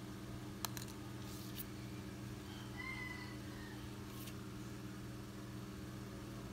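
Steady low electrical hum with a few faint clicks and a brief faint high tone about three seconds in.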